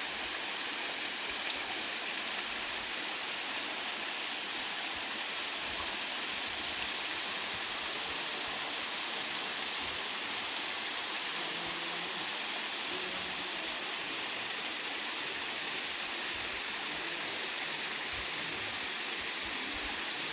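Steady rush of running water, as from a small waterfall or stream, even and unbroken.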